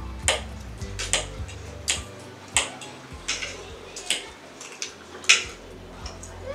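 Spoons and forks clinking and scraping against plates as two people eat pasta quickly: about ten short, sharp clicks at irregular intervals, the loudest about five seconds in, with faint background music underneath.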